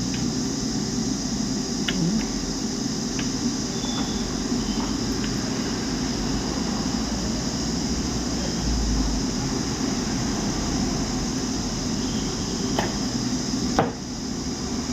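Steady hum of room ventilation such as an air conditioner, with a few faint clicks and taps as small electronic parts and leads are handled on the bench.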